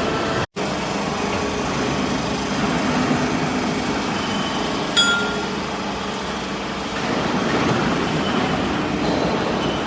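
Hydraulic aluminium chip baler running in a workshop: a steady mechanical noise, with one sharp metallic clink about halfway through. The sound cuts out for an instant near the start.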